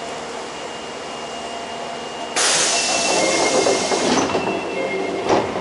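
Doors of an Osaka Metro 22 series subway car closing: a sudden loud hiss of air starts about two seconds in, then the doors shut with a thump near the end, over the steady hum of the stopped car.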